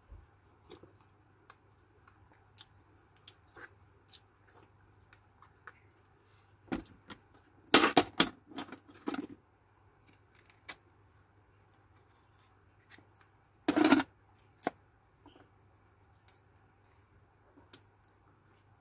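Eating and cutting open passion fruit with a metal spoon and a knife: scattered small clicks and scrapes, a loud cluster of scraping clatters a little before the middle, and one more loud clatter about three-quarters in.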